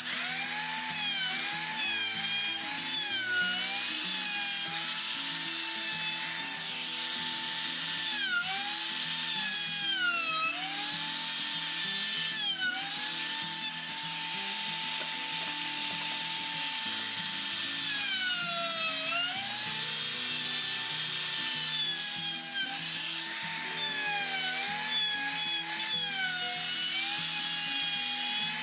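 Handheld electric router cutting along a wooden wagon spoke: a high motor whine over a hiss of cutting. The whine sags in pitch again and again as the bit bogs down in the wood, then climbs back.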